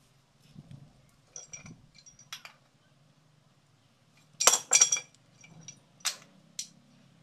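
Metal tool knocking against the metal pipe of a hand water pump: about six sharp metallic clinks with a short ring, the two loudest close together a little past the middle, the rest fainter taps.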